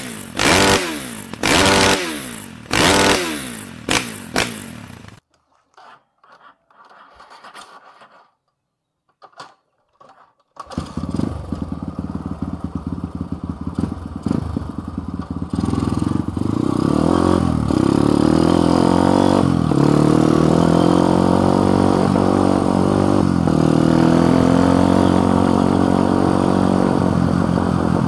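A short intro sting of four falling swooshes is followed by a few seconds of near quiet. A motorcycle engine then starts up abruptly and runs close to the on-bike camera, its pitch rising and falling as the bike rides along a rough dirt lane, growing louder and steadier after a few seconds.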